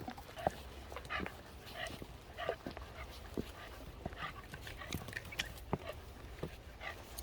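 A pet dog whimpering and yipping in short, high calls, among light clicks and knocks.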